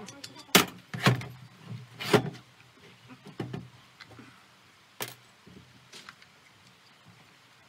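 A handful of sharp knocks and clatters of hard objects being handled, irregularly spaced, the loudest in the first two and a half seconds and dying away after about six seconds.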